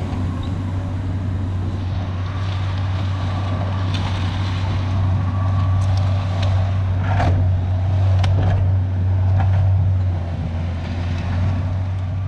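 Diesel engine of a tracked earthmoving machine running steadily under load while working gravel, with a few sharp clanks; it grows louder for a few seconds in the middle.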